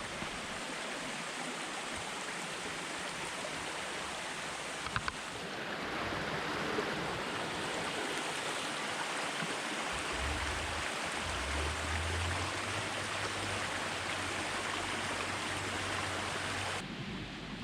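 Small woodland creek babbling: steady rushing of shallow running water, with a few light clicks about five seconds in and a low rumble joining about halfway. The sound drops off abruptly just before the end.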